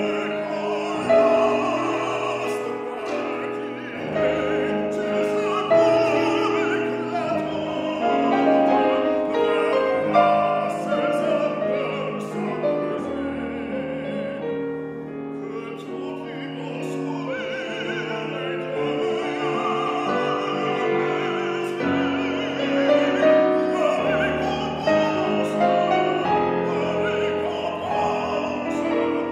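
Tenor singing an art song in full classical style with a wide vibrato, accompanied by a Steinway grand piano. About halfway through the voice stops for a couple of seconds, leaving the piano alone, then comes back in.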